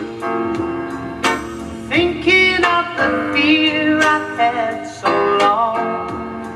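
A song playing: singing over an instrumental backing, with new chords coming in about once a second.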